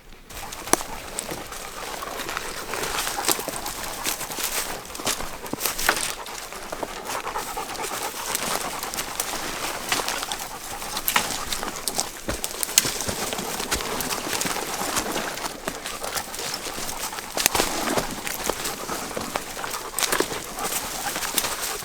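Hard panting breaths during a strenuous hike through brush, with many sharp crackles and snaps of brush and footsteps scattered throughout.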